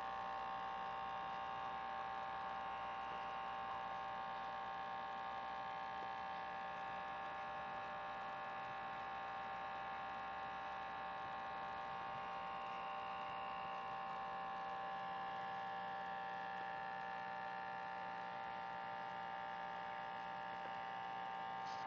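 Steady electrical hum made of several high tones held together.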